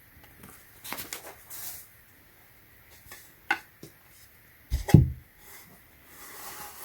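Flat-pack furniture parts being handled: soft rustles and light clicks, a sharp click about three and a half seconds in, and a dull knock just before five seconds in.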